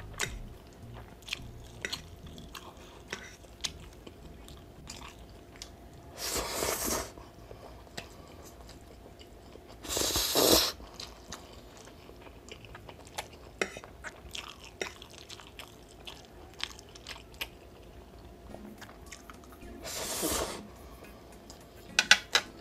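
Close-miked eating of pancit canton noodles: wet chewing and small mouth clicks throughout. Three louder noodle slurps of about a second each come at roughly a third of the way in, about halfway and near the end. A few sharp clinks of the fork on the plate come at the very end.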